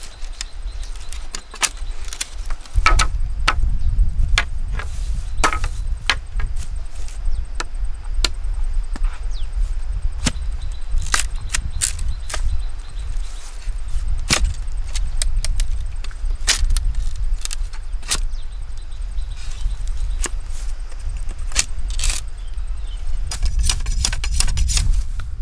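Bamboo poles and split bamboo strips being worked by hand: scattered sharp clicks and knocks of bamboo on bamboo, with a quick run of clicks near the end, over a steady low rumble that sets in about three seconds in.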